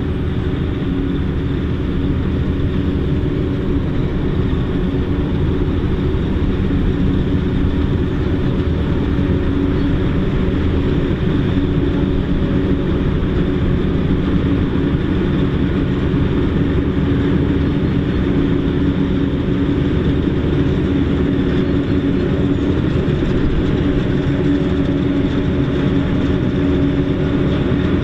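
John Deere self-propelled forage harvester chopping standing maize, its engine and cutterhead making a steady loud drone with a low hum, together with the tractor pulling the silage trailer beside it.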